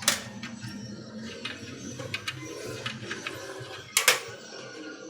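Scattered sharp knocks and clicks, the loudest right at the start and a double knock about four seconds in, with lighter ticks between, over a steady low hum.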